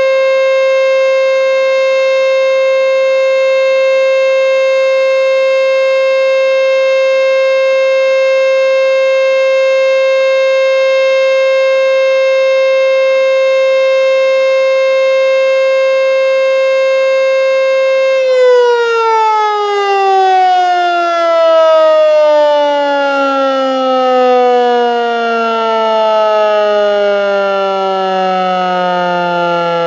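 American Signal T-121 electromechanical outdoor warning siren holding a steady full alert tone, then shut off about 18 seconds in and winding down, its pitch sliding steadily lower to the end.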